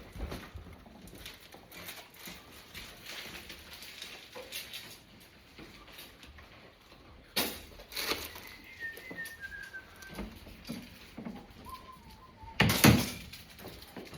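Scattered knocks and handling clatter from work in a room, the loudest a heavy knock near the end, with a few faint short chirping notes stepping downward in pitch in between.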